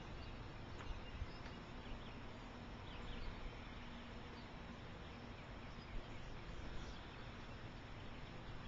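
Outdoor ambience: a steady low hiss with a few short, faint high chirps now and then.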